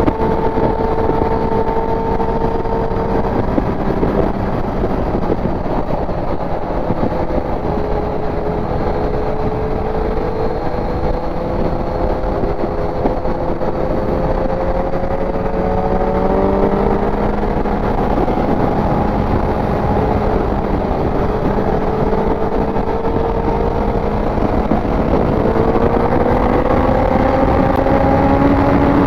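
Inline-four sport motorcycle engine on the rider's own bike, running under load at cruising revs with slow rises and falls in pitch, a gear change about halfway through and revs climbing near the end, all under a constant rush of wind and road noise.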